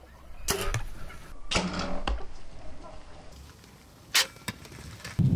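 A string of short, sharp knocks and snaps a second or more apart: bows being shot at wild turkeys and arrows striking, the sharpest just after four seconds.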